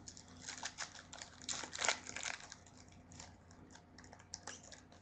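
Foil trading-card pack wrapper being torn open and crinkled by hand: a run of crackling rustles, loudest about two seconds in, then scattered crinkles.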